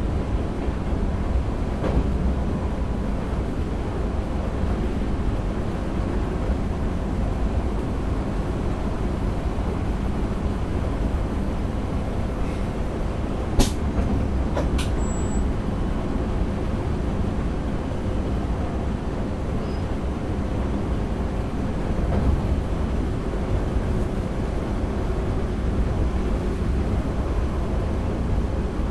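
NS DDZ double-deck electric train running at speed, heard from the driver's cab: a steady rumble of wheels on rail and running gear. Two sharp clicks a little over halfway through, about a second apart.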